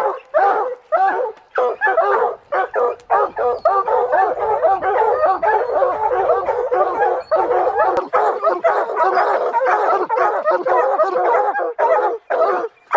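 A pack of coonhounds baying at a tree, several dogs calling at once and overlapping. This is a tree bark, the sign that they have a mountain lion treed above them.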